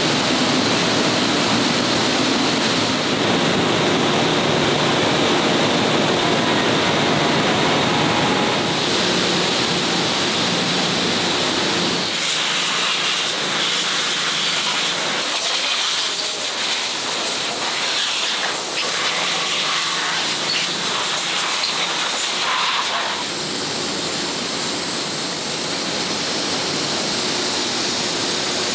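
Spray booth jets hissing steadily as mist blasts a chain-hung tractor transmission housing. About twelve seconds in, this gives way to quieter assembly-line noise: a steady hiss with light metallic clinks and tool clicks as an engine is fitted to the transmission.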